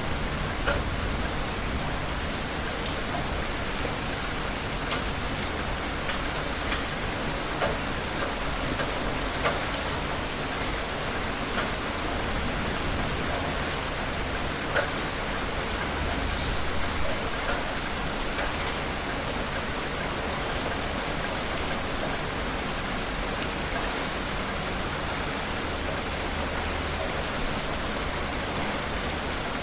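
Heavy rain falling steadily, with scattered sharper ticks of individual drops hitting nearby.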